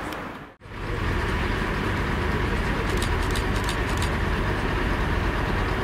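Diesel locomotive hauling a rake of coaches, a steady low engine drone with a few faint high clicks about three seconds in. The sound drops out briefly near the start.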